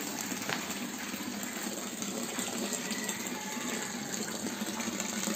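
A thin jet of water from a mini electric water pump's raised outlet pipe falling about two metres and splashing steadily into a pond.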